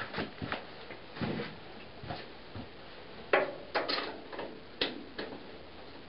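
Irregular clicks and knocks of hand tools and metal parts being handled while a spark plug is checked on a John Deere Model A tractor. The loudest knocks come between about three and five seconds in.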